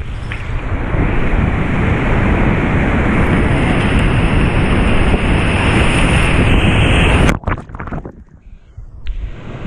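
Loud, steady rush of big whitewater rapids with waves crashing over a kayak, heard close up from a camera on the boat. About seven seconds in the sound suddenly drops to a dull, muffled rumble as the camera goes under the water, and the rush comes back near the end.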